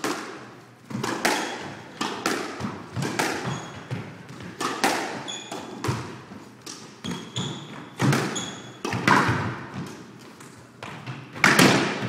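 Squash rally: the ball hitting rackets and the court walls, each hit echoing, about one or two a second, with the loudest hit near the end. Short squeaks of shoes on the wooden floor come between hits.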